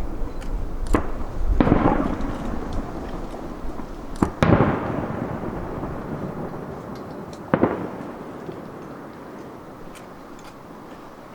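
Aerial firework shells bursting: about four sharp booms, the loudest about four and a half seconds in, each followed by a rolling echo that dies away. The bursts thin out and fade over the last few seconds.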